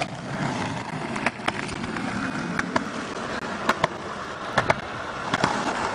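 Longboard wheels rolling on a concrete path: a steady rolling noise with sharp clicks every second or so, several of them in close pairs.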